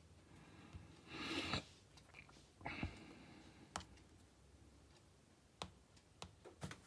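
Faint scattered clicks and a couple of brief rustles from handling and tapping a small tablet: two short rustles in the first three seconds, then single clicks spread through the rest.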